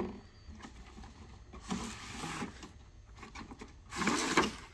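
Cardboard packaging being handled as a box is opened and its inner cardboard tray is slid out of the outer sleeve: two scraping, rustling slides, one about two seconds in and a shorter, louder one near the end, with light knocks of cardboard between them.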